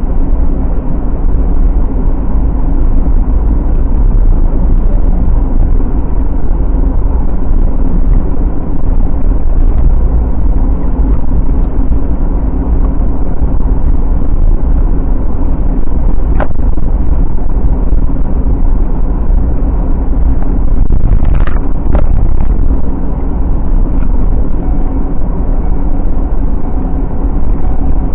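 Vehicle driving with a stock trailer in tow: a loud, steady, low rumble of engine and road, with a brief knock a little past halfway and a couple more a few seconds later.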